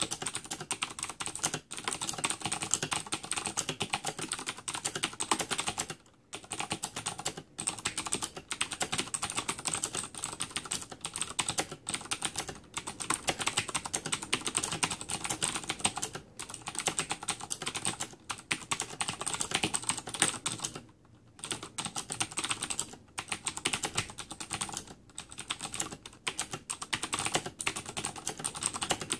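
Fast typing on a Razer BlackWidow Ultimate mechanical keyboard with clicky switches: a dense, rapid stream of key clicks with a few brief pauses.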